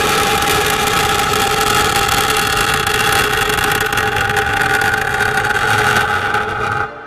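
Rocket motor of a missile launching from its launcher: a loud, steady rushing noise with several steady tones running through it, cut off abruptly near the end.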